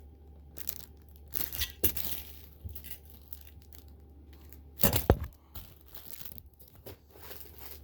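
Packaging being handled and torn open by hand, in scattered crinkles, rustles and small clicks, with a louder, sharper crackle about five seconds in.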